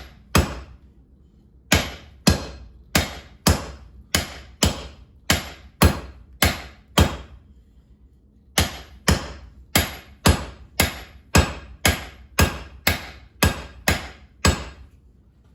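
Blacksmith's hand hammer striking hot steel on an anvil while forging a hammer eye drift. There is one blow at the start, then two steady runs of about two blows a second, roughly ten and then twelve, with a short pause between them. Each blow rings briefly.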